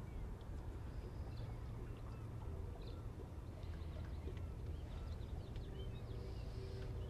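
Open-water ambience around a boat: a steady low rumble of wind and water, with faint, scattered bird chirps.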